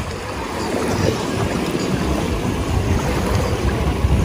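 Wind buffeting the phone's microphone in a steady, uneven rumble, over a soft wash of gentle waves at the shoreline.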